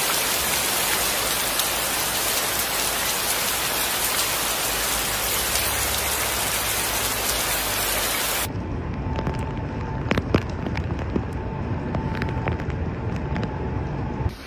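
Heavy rain as a steady, even hiss. About eight seconds in it cuts to a duller recording of rain and water, with a low rumble, scattered crackling drops and a faint steady tone for a few seconds.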